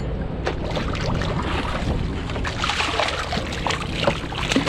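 A hooked sheepshead thrashing and splashing at the water's surface beside a kayak, the splashing growing busier about halfway through, over a steady rumble of wind on the microphone.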